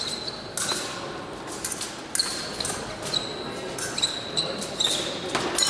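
Épée blades clashing in a fencing bout: a string of sharp clicks with short, high metallic pings, mixed with shoes squeaking and stamping on the piste, with the echo of a large hall.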